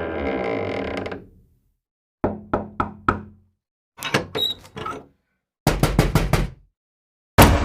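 A run of door sound effects. A door creaks and fades out, then a hand knocks four times on a wooden door, then the door's latch clicks and rattles open. Next comes a fast burst of five heavy, angry pounds on the door, and near the end a sudden loud hit rings on.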